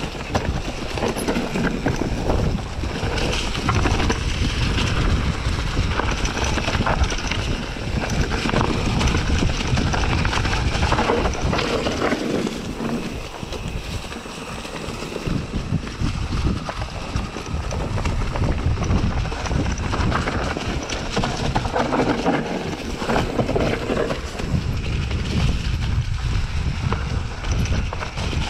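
Wind buffeting the microphone while a mountain bike rides over a rocky trail, with a steady run of rattles and knocks from the tyres and frame striking stones.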